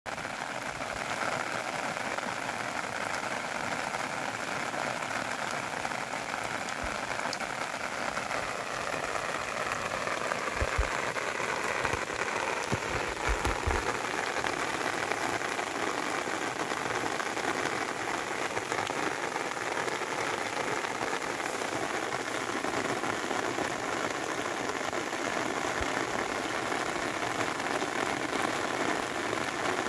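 Steady rain falling onto shallow water, the drops striking the water's surface. A few brief low thumps come around the middle.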